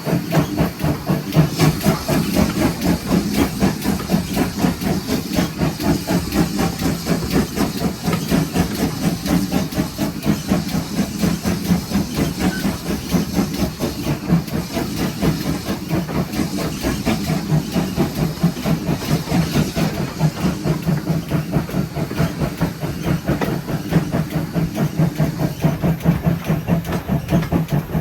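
Pannier tank steam locomotive 7754 under way: a steady, even rhythm of exhaust beats with a continuous hiss of steam over it.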